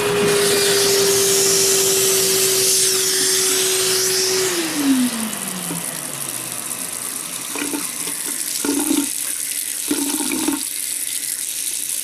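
Wet/dry shop vac running with a steady whine, switched off about four and a half seconds in, its motor pitch falling away over about two seconds as it winds down. Running water from a tap keeps on hissing, with a few knocks near the end.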